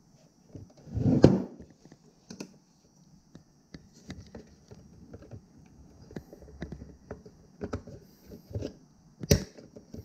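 Handling noises from a plastic fuel pump module on a wooden workbench: a loud knock about a second in, then scattered small plastic clicks and taps as wires are worked into it, and a sharp click near the end.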